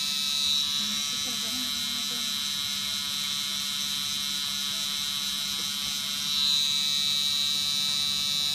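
Permanent-makeup tattoo pen machine running steadily with a high-pitched whine over a low hum as it tattoos the eyebrows.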